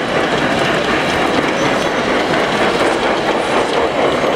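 A large-scale model train, a steam locomotive pulling boxcars, running past on the track with a steady rolling noise.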